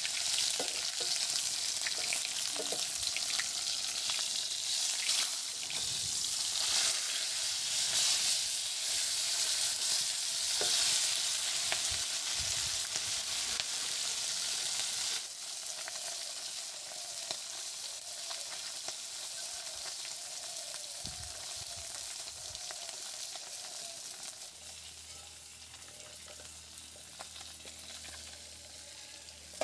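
A whole fish sizzling as it fries in hot oil in an iron kadai, with the occasional scrape and click of a metal spatula turning it. The sizzle drops to a quieter level about halfway through.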